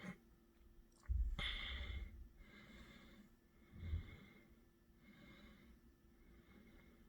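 A person breathing softly close to the microphone, several breaths in a row, with a low handling bump and a click about a second in.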